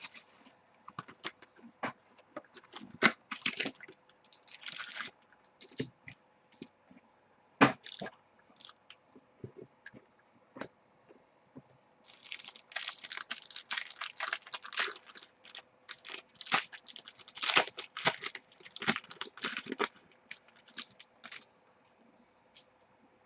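A box of sports trading cards being opened by hand: crinkling and tearing of the plastic wrap and packaging, with scattered sharp crackles and a long stretch of dense crinkling in the second half.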